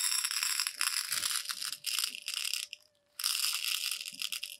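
Tiny candy beads poured from a foil bag into a small tin, a dense pattering rattle that pauses briefly a little before three seconds in and then starts again.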